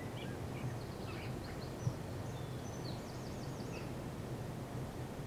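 Small birds chirping, with a quick repeated trill around the middle, over a steady low hum and one sharp click about two seconds in.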